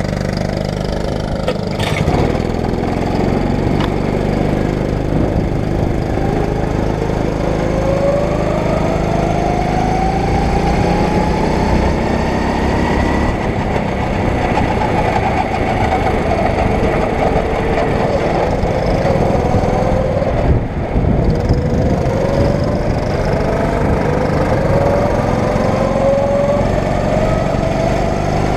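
A 9 hp rental go-kart's engine heard onboard, running loud as the kart pulls away and drives the track. Its pitch climbs in one long sweep as it gathers speed, then in several shorter sweeps near the end as it accelerates out of corners.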